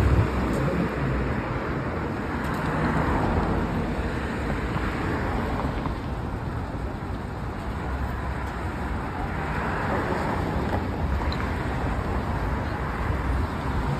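City street traffic: a steady wash of car noise that swells as vehicles pass, about three seconds in and again around ten seconds.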